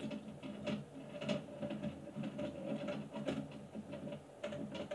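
Irregular small clicks and scraping of the takedown tool working against the Hi-Point 995 carbine's parts as the bolt is removed, over a faint steady hum.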